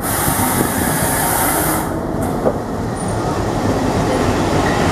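WDM-class diesel locomotive passing close by, its engine running and its wheels running over the rails. A sharp hiss sits on top for about the first two seconds.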